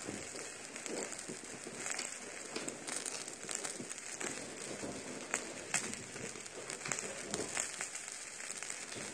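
Wild boar meat sizzling on a hot grill pan: a steady crackle with scattered sharp pops of spitting fat.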